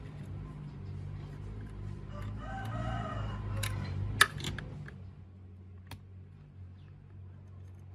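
A rooster crowing once, a single drawn-out call lasting about a second and a half. Several sharp clicks sound, the loudest just after the crow ends, over a steady low hum.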